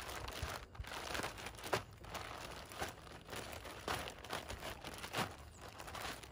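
Plastic zip-top bag crinkling as chicken legs are worked around inside it to coat them in seasoned flour, an irregular rustle with a few sharper crackles.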